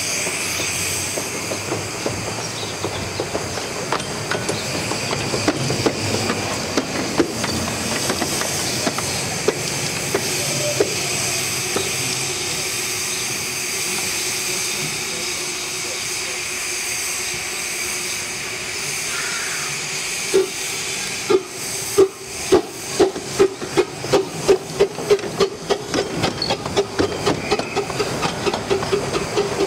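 Steam locomotives on the 15-inch-gauge Romney, Hythe & Dymchurch Railway hiss steadily as they stand in steam. About two-thirds of the way in, a locomotive starts working, with sharp exhaust beats about two a second as it comes past.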